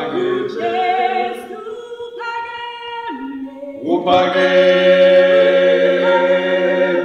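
Unaccompanied choir singing a slow, repeated chant in harmony. The voices thin out and quieten about two seconds in, then swell into a full, loud chord held for about three seconds.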